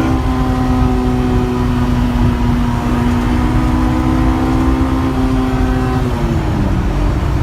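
Honda S2000's four-cylinder engine running at steady revs under load over a heavy low road rumble; about six seconds in, the pitch falls as the revs drop. The engine is misfiring under load, with the check-engine light flashing.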